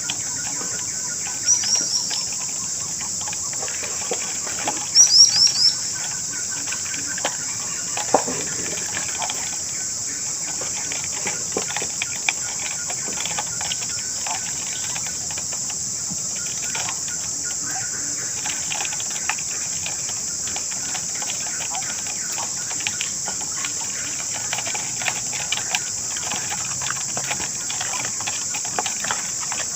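A continuous high-pitched insect chorus. Twice in the first six seconds a bird gives a quick run of short downward chirps, and faint scattered clicks and knocks come through.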